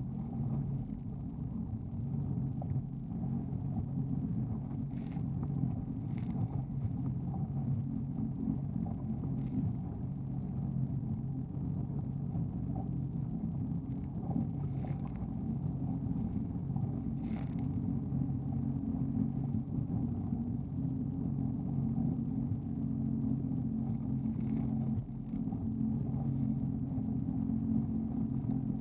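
Jet ski engine running at a steady speed, a constant low rumble with a few faint knocks scattered through it.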